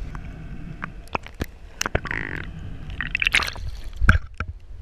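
Sea water splashing and gurgling close to the microphone, with scattered sharp clicks and knocks over a steady low rumble. A louder splashy stretch comes about three seconds in.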